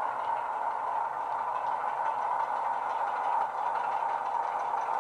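DCC sound decoder in a Heljan Class 33 model locomotive playing a recorded Class 33 diesel engine through the model's small 27 mm bass-enhanced speaker, running steadily as the locomotive moves along.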